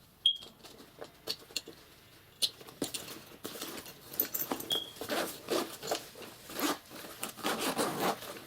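Zipper of an AmazonBasics camera sling backpack being unzipped in a series of rasping pulls as the bag is opened, after a few light clicks and a brief high chirp in the first seconds.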